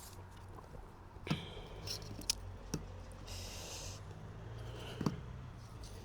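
Pieces of charcoal clicking and clinking as they are stacked by hand into a small open structure, with four sharp clicks and a brief rustle about halfway through.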